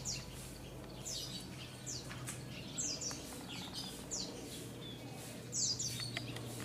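Lovebirds chirping: short, shrill calls that fall in pitch, repeating about once a second, over a steady low hum.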